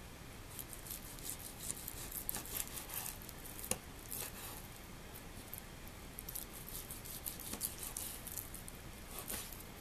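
Chef's knife slicing through a raw beef tenderloin on a wooden cutting board: faint, scattered soft scrapes and small ticks of the blade, with one sharper click a little under four seconds in.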